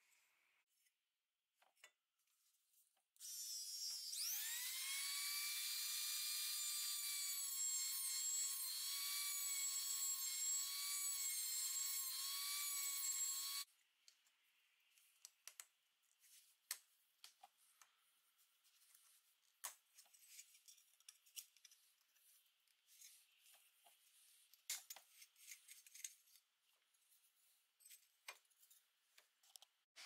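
A handheld rotary tool's small motor spins up about three seconds in with a quickly rising whine, runs at a steady high pitch for about ten seconds, then cuts off. Afterwards there are only faint scattered scrapes and clicks of hand work on small metal parts.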